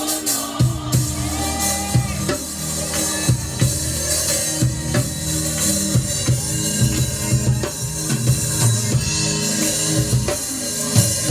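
Gospel praise-and-worship music with a drum kit keeping a steady beat under bass and sustained instrument notes.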